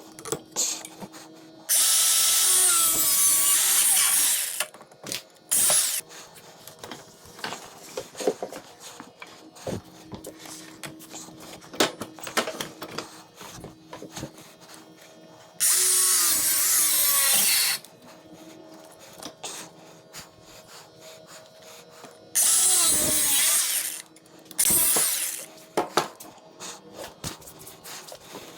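Handheld power tool cutting into a mini four-wheeler's metal frame. It runs in several bursts of one to three seconds, and the pitch falls as it winds down after each one. Lighter knocks and handling clatter come between the bursts.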